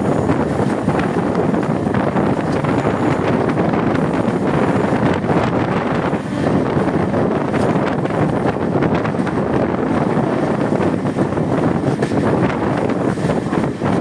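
Steady running noise of a moving passenger train, heard from an open coach window with loud wind buffeting the microphone.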